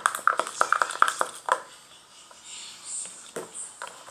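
Homemade clicky slime being squeezed and kneaded by hand: a quick run of small wet clicks and pops in the first second and a half, then softer handling with a few more clicks.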